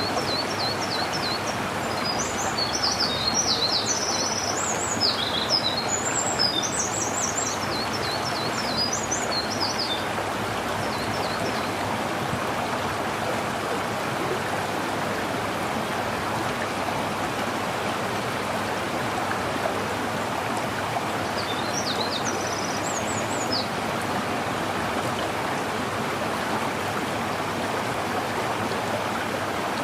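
Steady rush of running water from a stream. Over it a songbird sings a long run of quick, high notes through the first ten seconds or so, then a short phrase a little past the middle.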